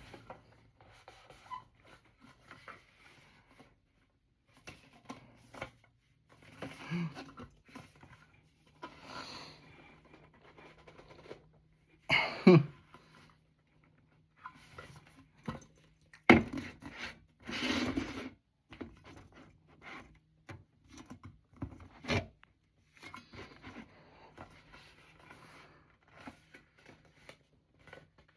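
Packaging of a new cologne being handled, rubbed and scraped in repeated attempts to open it, with a few louder rustles and knocks about halfway through.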